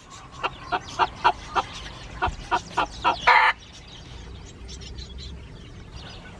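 Bantam hen clucking in a quick run of short clucks, about three a second, ending in one longer, louder call about three seconds in. Young Sebright chickens peep faintly afterwards.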